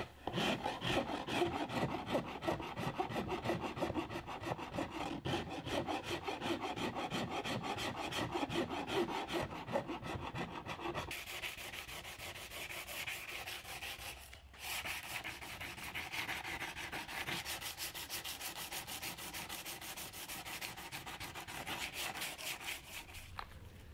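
Hand sanding of green filler and gel coat on a fiberglass rudder-bottom fairing: quick back-and-forth scraping strokes of abrasive on the glass. About 11 seconds in the strokes turn lighter and higher, with a brief pause a few seconds later.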